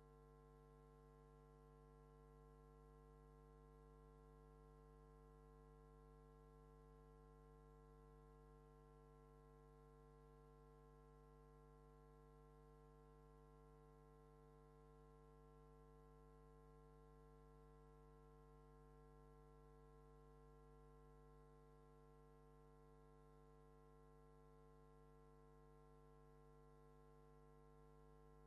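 Near silence with a faint steady hum made of several constant tones that never change.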